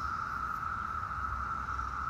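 Chorus of periodical cicadas: a steady, even buzzing drone at one pitch.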